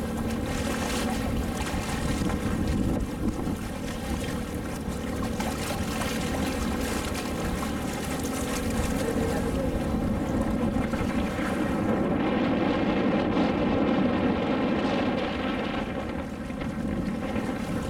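Engine of a small motor launch running steadily under way, with a steady hum over the rush of wind on the microphone and water. The high hiss eases for a few seconds past the middle.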